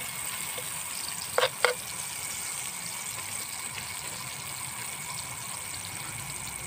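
Margarine melting and sizzling in a hot wok, a steady hiss, with two short knocks about a second and a half in.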